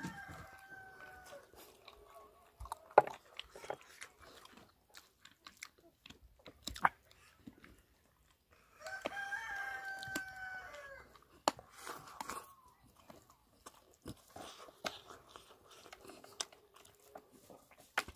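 A rooster crows twice, about nine seconds apart, each crow about two seconds long and dropping in pitch at the end. Between and around the crows come scattered sharp crunches and clicks of someone chewing and biting pig's feet; the loudest of these are about three and seven seconds in.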